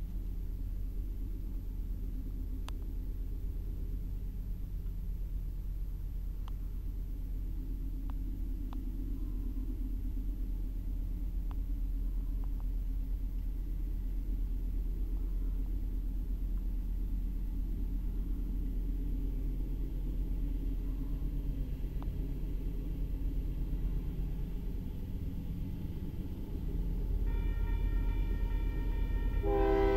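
A low steady rumble, then about 27 s in the grade crossing's warning bell starts up as the signals activate, and right at the end the approaching GE locomotive's air horn begins to sound.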